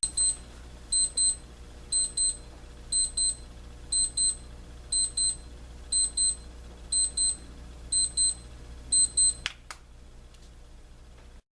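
Advance 6040 digital travel alarm clock sounding its beep alarm: high electronic double beeps, one pair each second, ten pairs in all. About nine and a half seconds in a sharp click is heard and the beeping stops.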